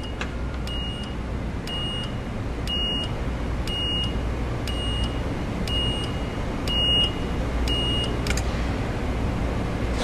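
FAAC automatic bollard rising from the ground. A warning beeper sounds short high beeps about once every three-quarters of a second over a steady low hum, and the beeps stop with a click about eight seconds in, when the post reaches full height.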